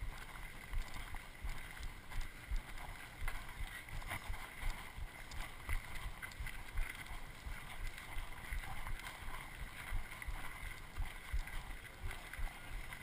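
Footsteps of several people walking on a dry, gravelly mountain trail, with the body-worn camera thumping and rubbing at each step and wind on the microphone.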